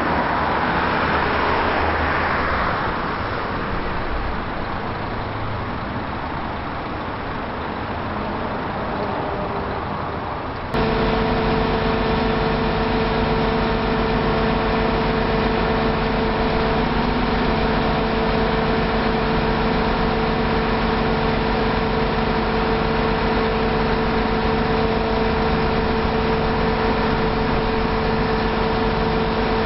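Broad rushing outdoor noise that fades over the first few seconds, then, about eleven seconds in, an abrupt switch to a large diesel engine running steadily with a constant drone.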